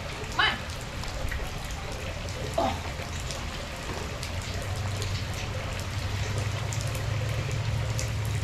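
Steady rain falling on a wet brick-paver driveway, with a low steady hum coming up about halfway through.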